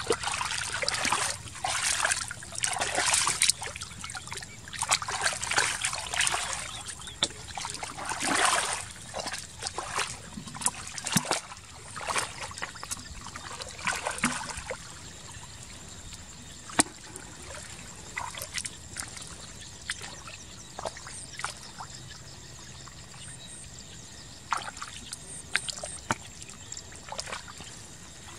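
Splashing and sloshing in shallow muddy water as a man wades and works his hands through the mud, in loud bursts over the first half, then sparser, fainter splashes and drips.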